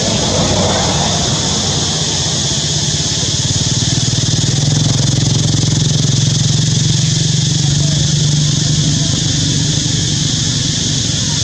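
Steady low engine drone that swells in the middle and eases off toward the end, over a constant high hiss.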